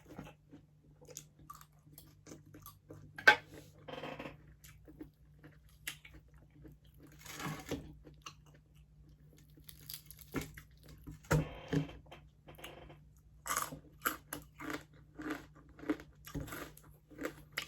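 Close-up chewing and crunching of crispy pata, the crackling fried skin of deep-fried pork leg, in irregular bites with one loud crunch about three seconds in.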